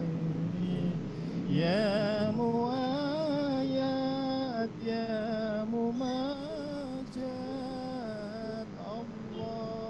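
A slow melody sung in long held notes, one voice line gliding between pitches with a wavering vibrato on some notes and brief pauses for breath.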